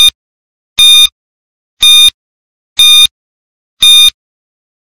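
Countdown timer sound effect: five short electronic beeps, one each second, ticking off the seconds left to answer.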